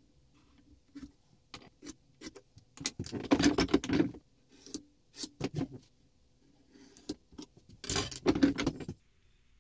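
Steel marking tools and a pencil being handled on a beech block on a wooden workbench: a string of clicks, clinks and knocks, with two longer spells of rubbing and scraping, one about three seconds in and one near the end.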